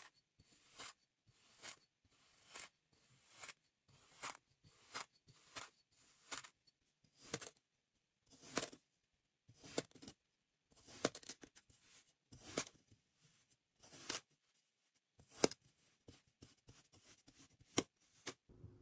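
Metal tools cutting through packed kinetic sand. First a round cutter punches out plugs at about one cut a second, then a knife slices the block into chunks in quicker, uneven strokes. Each cut gives a short, crisp crunch.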